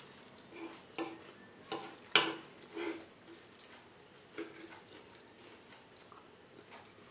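Close-miked eating sounds: a series of short clicks and taps, the loudest about two seconds in, as a metal fork cuts into and scoops up a baked stuffed bell pepper, with chewing between.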